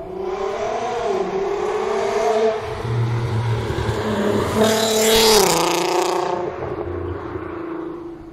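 A lowered Volkswagen Golf drives past. Its engine note rises and falls, is loudest about five seconds in as the car goes by with the pitch dropping, then fades away.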